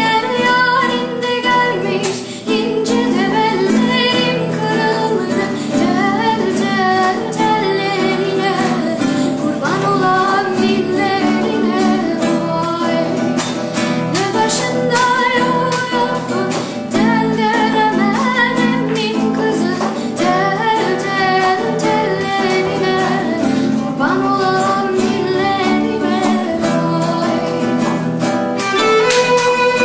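A boy singing a melody in a high, treble voice over an instrumental accompaniment. Near the end he starts playing the violin.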